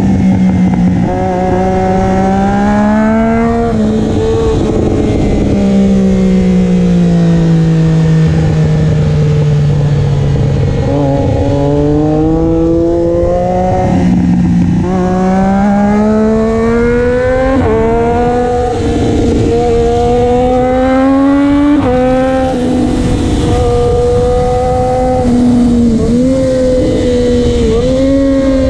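Triumph Daytona 675's inline three-cylinder engine running through a Racefit slip-on exhaust, loud. The engine note sags slowly, then climbs in several steps from about halfway, and dips briefly a couple of times near the end.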